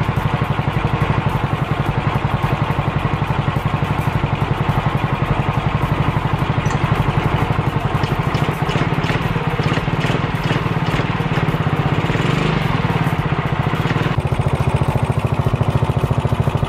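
Yamaha Mio scooter's single-cylinder engine running steadily with an even rapid firing beat, its carburetor's clogged slow jet just cleaned.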